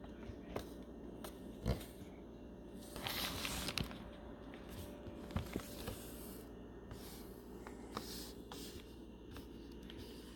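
Plastic laptop case being handled: scattered light clicks and taps, the sharpest about two seconds in, and a short scraping rustle about three seconds in.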